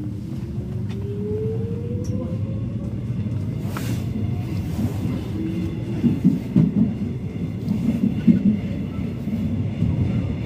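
Busan Metro Line 1 subway train accelerating away from a station: a motor whine rises steadily in pitch over the first few seconds above the low rumble of wheels on track. From about six seconds in, the rumble turns uneven and louder, with repeated knocks.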